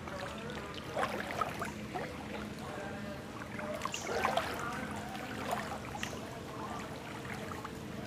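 Shallow water sloshing and splashing as someone wades through it between mangrove roots, with scattered small splashes and clicks over a faint steady hum.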